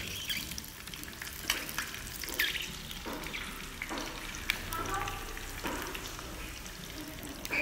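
Sausages frying in shallow oil in a small pan: a steady sizzle with scattered crackles.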